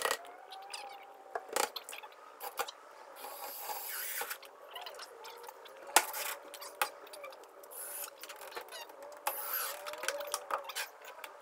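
Scattered knocks and scraping of a wooden plywood box being handled and pushed square, with a cordless drill driving screws into the plywood sheeting in a few short runs.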